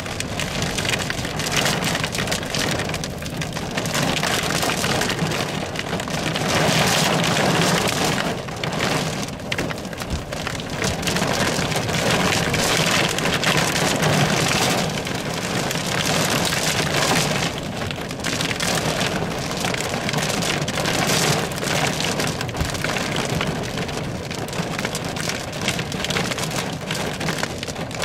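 Heavy thunderstorm rain pelting a car's windows and roof, heard from inside the car, as a dense patter that swells and eases.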